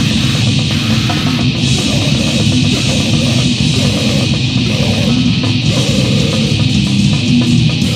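A band playing distorted grind/noise: fast, relentless drumming under heavily distorted guitar, forming a loud, dense and unbroken wall of noise.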